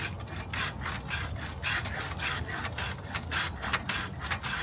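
A hand saw cutting through a live tree branch during pruning, in quick even strokes of about four a second.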